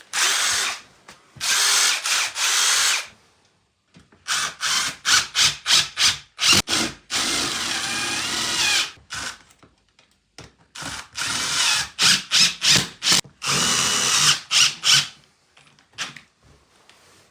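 Power drill running in repeated short trigger bursts, with one longer run of about two seconds in the middle where the motor pitch wavers under load.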